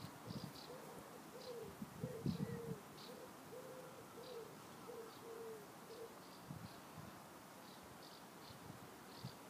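A dove cooing faintly in a run of short, low phrases that stop about six seconds in, with a small bird chirping high and thin throughout and a few soft thuds.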